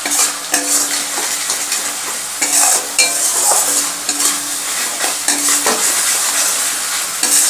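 Spice paste of onion, tomato and ground spices sizzling in oil in a metal wok while a metal spatula stirs and scrapes it, with a scrape every second or so. The masala is being fried down with a little added water.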